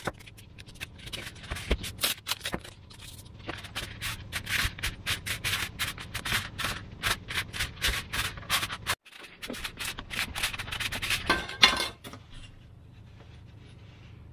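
A Depron foam sheet is rubbed and pressed by hand over an aluminium tube to bend it: a rapid run of short rubbing and scraping noises. It breaks off briefly about nine seconds in, a final loud cluster follows near twelve seconds, and then it goes quiet.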